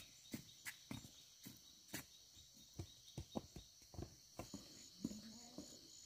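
Soft, irregular footsteps and scuffs of an adult and a small child walking on a dirt path, several steps a second. A steady high chirring of insects runs underneath and turns into an even pulsing about halfway through.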